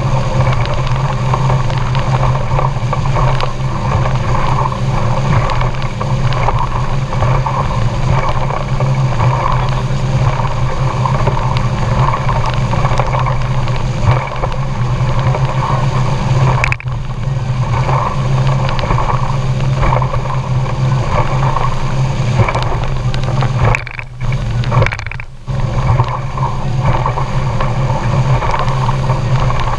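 Boat's outboard motor running steadily, a constant hum with wind and water noise over it. The sound dips briefly twice in the second half.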